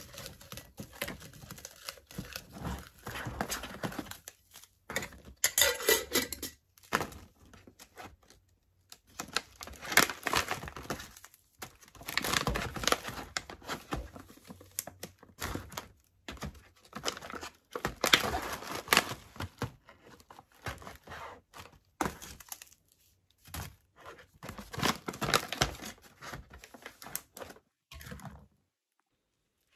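Clear plastic bag and paper oxygen absorber packets crinkling and rustling in irregular bursts as they are handled, stopping abruptly near the end.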